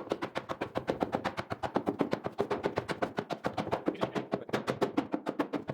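Rapid, even hammering on an oak sherry quarter cask, about seven or eight sharp knocks a second, as the cooper closes the cask and chaps out the staves.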